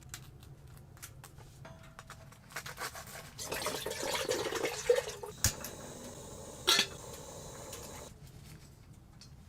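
Cookware and utensils being handled: scattered light clicks, a couple of seconds of denser clinking and scraping, then two sharp knocks.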